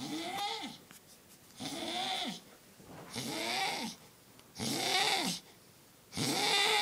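A man snoring heavily: five snores about a second and a half apart, each a noisy sound whose pitch rises and then falls.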